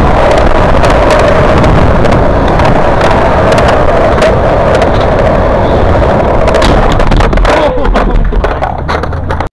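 Skateboard wheels rolling on smooth concrete, a loud, steady rumble. About three-quarters of the way through, the rolling breaks up into scattered knocks and scrapes.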